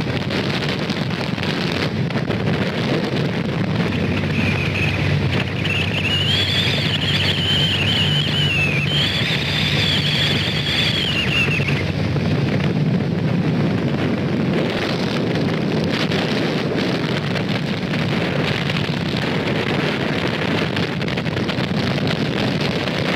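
Speedboat under way: the engine runs steadily under a heavy rush of wind and water noise on the microphone. Midway, a high wavering whine rises and falls for several seconds.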